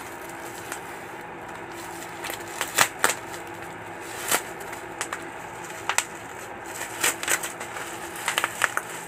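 Plastic courier mailer and bubble wrap crinkling and rustling in the hands as a parcel is opened: sharp, irregular crackles that begin about two seconds in and come thicker near the end.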